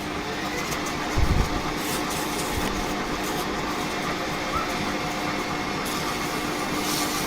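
Smart & Brown lathe running steadily with a constant hum, with a short low thump about a second in.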